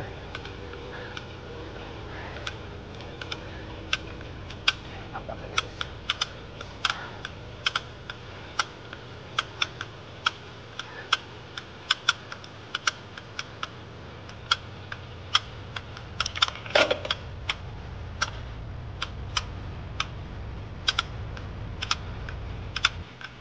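Mountain bike climbing a very steep slope in its lowest gear, giving sharp irregular clicks, one to three a second, over a low steady rumble, with a louder knock about two-thirds of the way through. The clicks are the uncomfortable noises the bike makes under heavy pedalling load.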